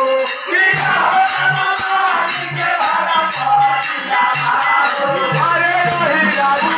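Bhojpuri pachra, a devotional folk song to the goddess: a voice singing over a steady, dense beat of jingling, shaker-like percussion.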